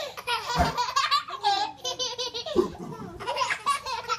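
Babies laughing, with high-pitched giggles and belly laughs in short repeated bursts.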